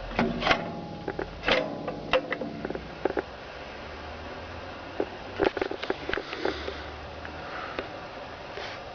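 Irregular metal knocks and clanks with a short pitched squeal in the first couple of seconds, then a second cluster of knocks a little past the middle, typical of a hand-operated brick-making press being worked.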